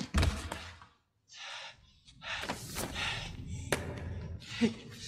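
Movie sound effects: a sudden heavy thud at the start, then bursts of rushing noise and a sharp crack about three and a half seconds in.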